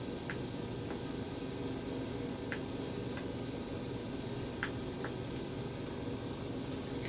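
Steady low background hum with about six faint, light ticks scattered irregularly through it.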